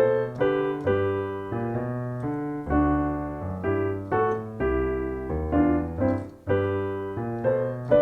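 Piano playing a blues walking bass line in a dotted, tango-like rhythm, with several notes struck together over the bass.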